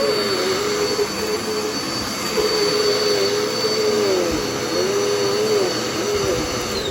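Dirt Devil upright vacuum cleaner running: a steady high motor whine over rushing air, with a lower tone that wavers up and down. It is on a test run after a clog of dirt was cleared from its left side. Near the end it is switched off and the whine falls away as the motor spins down.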